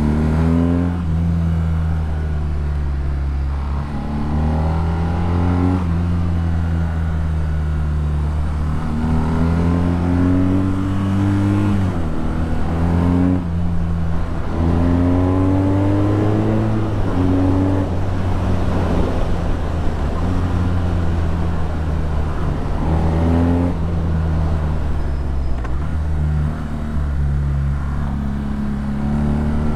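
BMW R nineT's boxer twin running through an Akrapovic exhaust, pulling hard through the gears on the move. The pitch climbs, then drops at each gear change, several times over.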